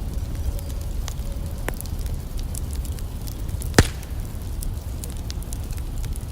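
Campfire burning with scattered crackles and one loud, sharp pop a little under four seconds in, over a steady low rumble.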